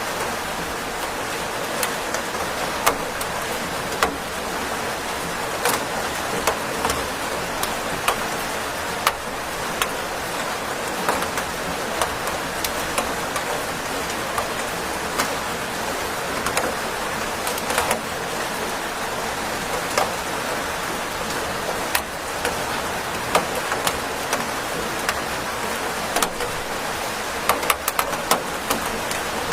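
Steady rain falling, with scattered louder drops ticking sharply through it.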